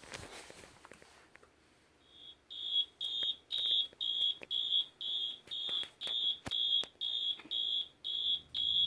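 Fire alarm sounder beeping, one high-pitched tone pulsing on and off about twice a second. It starts about two seconds in.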